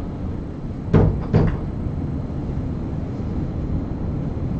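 Two short knocks, about half a second apart, over a steady low room rumble.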